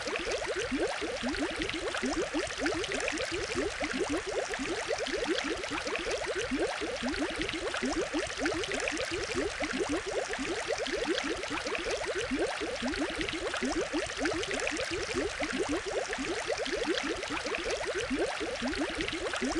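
Aquarium water bubbling and gurgling steadily over a constant hiss, with many quick rising bubble blips, several a second.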